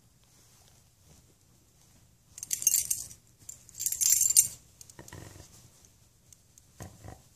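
Dog's collar tags jingling in two short bursts about a second apart, as the dog moves its head, followed by two soft knocks near the end.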